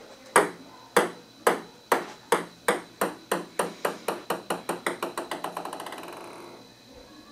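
Table tennis ball bouncing on a ping pong table. The bounces come ever faster and softer until they run together into a quick patter, which dies away about six and a half seconds in.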